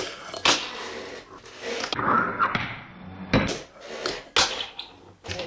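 Fingerboard clacking on a metal rail and wooden desk: several sharp clacks as the board's trucks and tail strike, with a short scrape of the board sliding along the rail about two seconds in.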